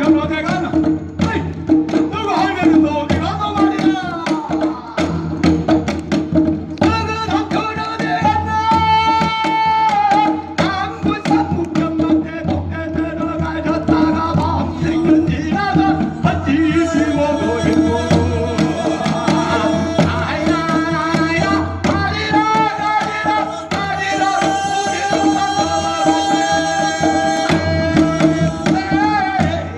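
Live traditional music: hand drums keep up a steady beat while a man's voice sings long held, wavering notes over a steady low drone.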